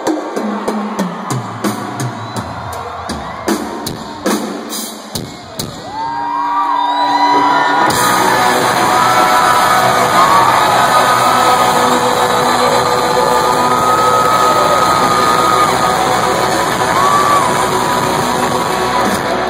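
Live rock band in an arena, recorded loud on a phone in the crowd. Drums play a run of hits and fills. About six seconds in, the crowd starts cheering, screaming and whistling, and from about eight seconds the band and crowd swell into one dense, loud wash.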